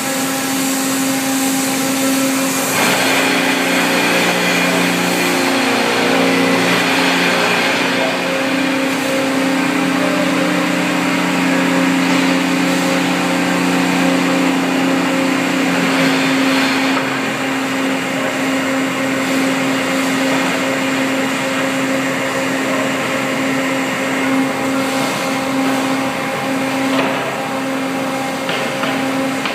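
Steady industrial machine hum of a factory rollover line. From about three seconds in until about sixteen seconds in, a second, louder drive sound with a lower steady tone joins it while the ring-shaped rollover machine turns its load, then cuts off.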